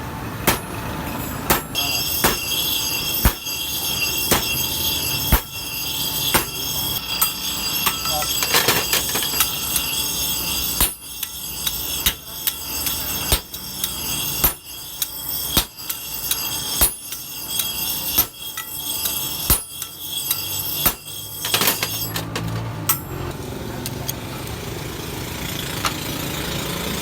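Blacksmith's hammer striking a steel chisel blank on an anvil while forging a concrete-cutting chisel: sharp blows roughly once a second under a steady high metallic ring. The hammering stops a little after twenty seconds in, leaving a low steady hum.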